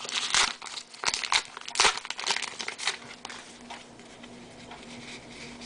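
Crinkling and tearing of a baseball card pack's foil wrapper as the pack is opened and handled, in quick sharp crackles. The crackles die down about three seconds in.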